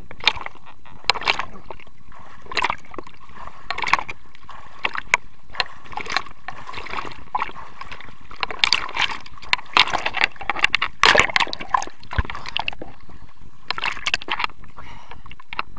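Lake water sloshing, splashing and gurgling against a handheld action camera held at the surface as it dips in and out of the water, in irregular bursts that come thickest in the middle.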